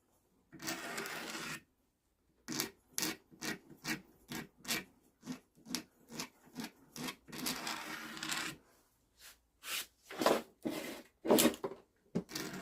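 Scraper drawn along a wooden tack hammer handle to strip its surface without sanding. A few longer strokes of about a second, with a run of short, quick strokes at about three a second in between.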